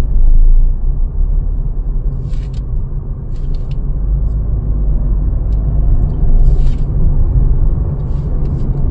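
Tata Altroz hatchback on the move, heard from inside the cabin: a steady low rumble of engine and road noise, with a few brief soft hisses.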